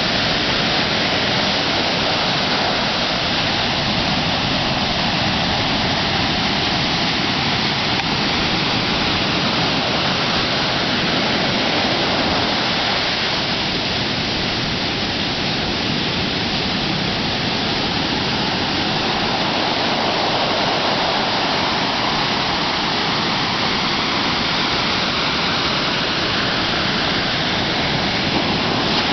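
Ocean surf breaking in a rocky cove and washing up a sand beach: a loud, steady rush of foaming water that swells and eases slowly.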